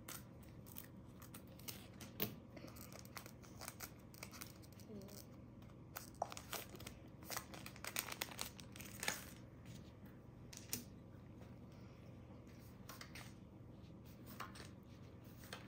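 Scissors snipping a foil booster pack of Pokémon cards open, the wrapper crinkling and tearing in short crackles. The crackles thin out about ten seconds in, giving way to the light sound of cards being slid out and handled.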